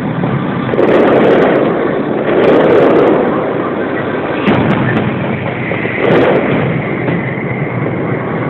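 Fireworks going off: three loud booming bursts, about one, two and a half, and six seconds in, over a continuous rumble with short crackles.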